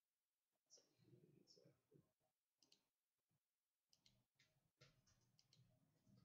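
Faint, scattered clicks of typing on a computer keyboard, a few keystrokes at a time, coming quicker after about four seconds.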